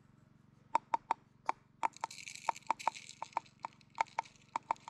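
Wood campfire crackling: a run of sharp, irregular pops, about four a second, with a brief hiss through the middle.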